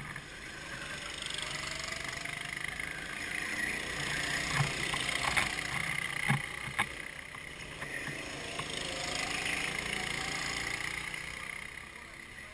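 Go-kart engines buzzing as karts lap the circuit, rising and falling in pitch as they pass, with a few sharp knocks in the middle.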